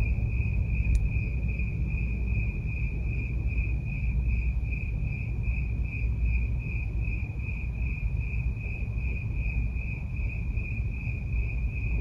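An insect trilling steadily on one high pitch, with a fast pulsing to the trill, over a low steady rumble.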